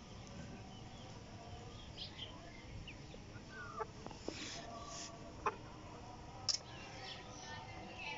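Young Light Sussex chickens giving scattered faint, short calls while pecking around a feeder, with a few sharp clicks.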